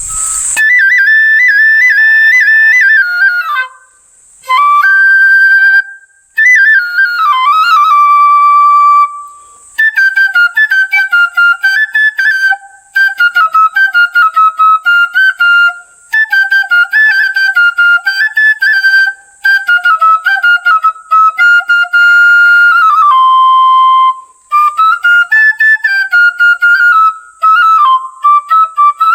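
Bansuri (bansi, Indian bamboo-style flute) played solo: a melody in phrases with short breaths between them. It opens with long held notes and slides, and from about ten seconds in moves to quick, ornamented runs.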